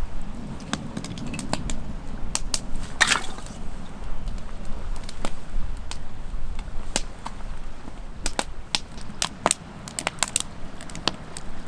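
Campfire of twigs and wood crackling, with sharp irregular pops throughout as the wind fans the flames. A low rumble of wind on the microphone fills the first couple of seconds.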